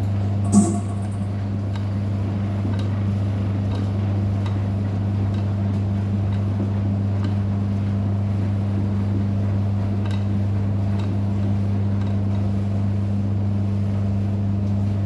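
Hotpoint washing machine running with a steady low hum, with faint scattered ticks and one short sharp click about half a second in.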